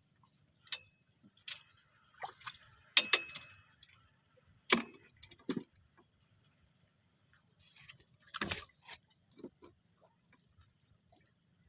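Irregular sharp clicks and knocks, about a dozen spread unevenly, with the loudest near the middle and again about two-thirds of the way in.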